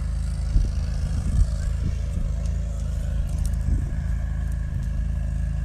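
Steady low rumble of a vehicle engine running, with wind buffeting the phone's microphone in irregular low thumps.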